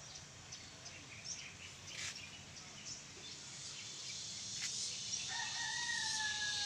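A rooster crowing once near the end, a single long held call that sags slightly in pitch, over faint bird chirps.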